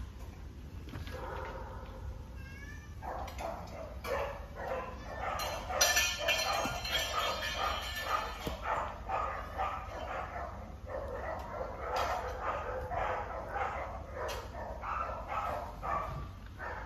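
Dogs barking repeatedly, many short calls overlapping, loudest about six seconds in.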